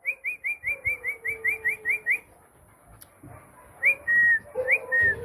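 High whistling: a quick run of about ten short rising chirps, then, after a pause, two two-part whistles, each a short rise followed by a held, slightly falling note.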